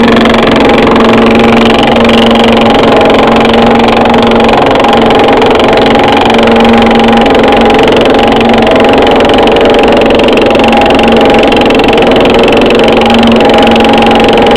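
Yager 11-inch thickness planer running loud and steady, its motor and cutterhead giving a constant hum of several steady tones over a dense rushing noise.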